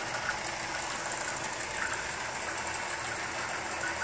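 Small peristaltic pumps running steadily, a continuous motor whir as the drink is still being dispensed.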